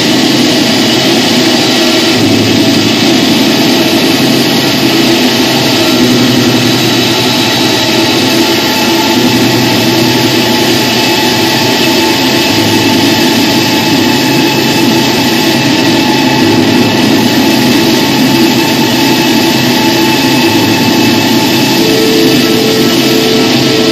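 Live noise/drone music: a loud, unbroken wall of dense electronic noise over a low drone that shifts slowly, with a steady higher tone entering near the end.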